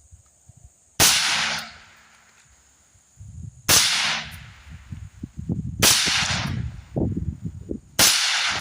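Four suppressed shots from an AR-15 rifle firing 55-grain .223 Remington, spaced roughly two to three seconds apart. Each is a sharp crack with a short echoing tail.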